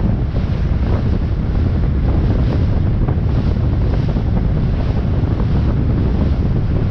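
Steady wind rumbling on the microphone of a pilot boat under way, over the rush of sea water along the hull.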